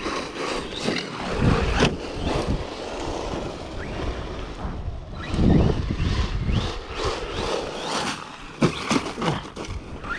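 Brushless electric RC monster truck (Arrma Mojave 4S on a 5S battery) being driven hard, its motor whining up and down in pitch as the throttle is pinned and released, with tyre noise. The loudest bursts come about two seconds in and midway, and there are a few sharp knocks near the end.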